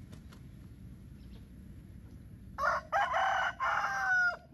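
A rooster crowing once, starting about two and a half seconds in: a cock-a-doodle-doo in several parts, the last note held and falling slightly.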